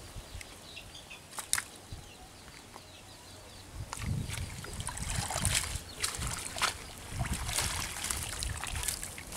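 A cast net being hauled up out of a pond by its rope. From about four seconds in, water splashes and trickles off the mesh as the net comes up at the bank's edge.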